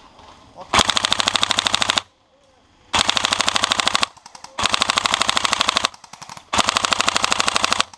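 Tokyo Marui HK416D airsoft electric rifle with an Osprey suppressor replica firing four full-auto bursts of about a second each, its gearbox cycling in a rapid, even clatter of shots.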